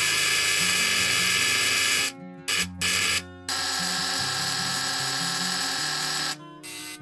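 Electric buzzing: a long burst of about two seconds, two short bursts, then another steady burst of about three seconds, over background music.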